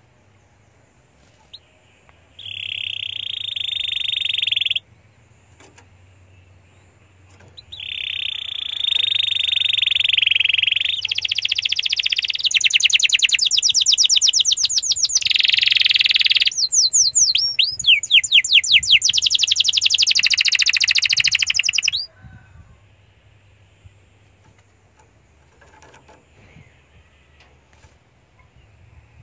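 Domestic canary singing: a short trill of about two seconds, then after a pause a long song of fast trills and rapid rising-and-falling repeated notes that stops suddenly about 22 seconds in.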